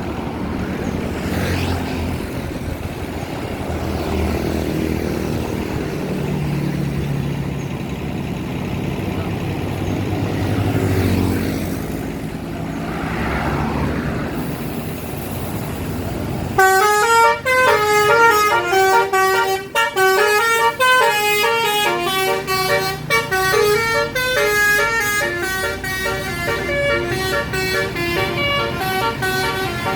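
Vehicle engine and road noise for about the first half, then about two-thirds of the way through a bus's telolet basuri musical horn cuts in loudly, playing a fast melody of short stepped notes that runs on to the end.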